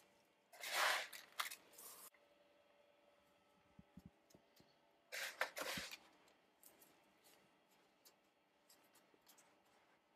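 Coarse rock salt mixed with egg white being scooped and packed by hand into a salt crust over a chicken in a roasting pan: two spells of gritty crunching, about half a second in and again about five seconds in, with a few faint clicks between.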